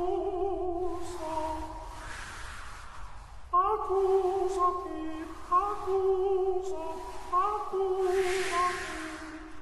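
Slow background music of long held, voice-like notes, with a new note entering about every two seconds from about halfway through.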